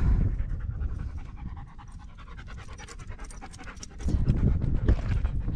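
French bulldog panting in quick, even breaths, with a low rumbling noise growing louder from about four seconds in.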